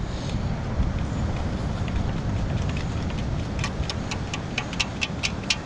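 Sand being shaken through a perforated stainless-steel sand scoop, with coins and debris inside clinking against the metal in a quickening run of sharp clicks over the second half, over a steady low rumble.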